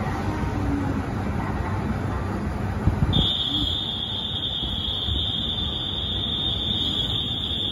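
A platform departure buzzer sounds one steady high tone for about five seconds, starting about three seconds in, as a signal that the train is about to leave. Under it, a 2700 series diesel railcar idles with a low rumble, and there is a single knock just before the buzzer starts.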